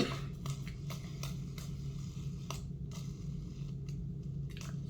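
A silicone pop-it fidget spinner being handled and played with, giving faint irregular clicks and rubs over a steady low hum.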